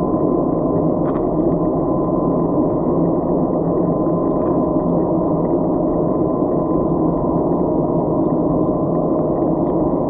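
Steady, muffled underwater wash picked up through a GoPro's waterproof housing, dull and low with a faint steady hum.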